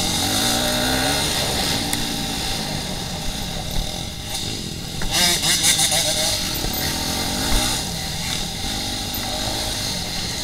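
Off-road dirt bike engine revving up and down in repeated rising and falling surges as it is ridden over a rough trail, with a louder burst of throttle about five seconds in.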